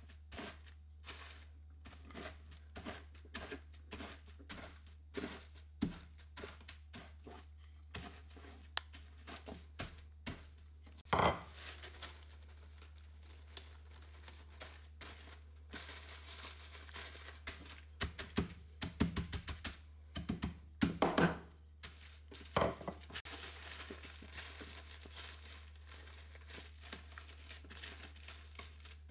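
Graham crackers being crushed inside a plastic zip-top bag with a wooden rolling pin: a run of small crunching crackles. A loud knock comes about a third of the way in, then several thuds against the countertop, and the plastic bag crinkles as the crumbs are handled and pressed flat.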